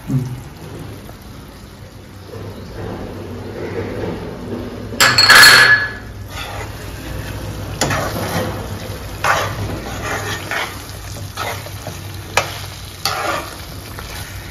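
Thick gongura chicken curry sizzling in a nonstick kadai. About five seconds in there is a loud clatter with a brief ringing note. From about eight seconds in, a spoon stirs the curry, scraping the pan in strokes about once a second.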